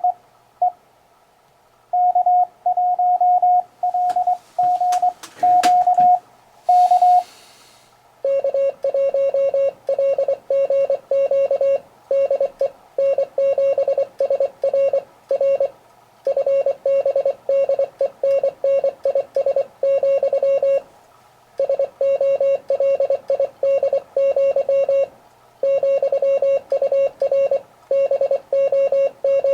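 Morse code (CW) tones from a ham radio transceiver. A higher-pitched tone keys a short run of characters over the first seven seconds or so, with a few clicks and a brief burst of hiss. From about eight seconds in, a lower-pitched, buzzier tone keys fast dots and dashes almost without pause.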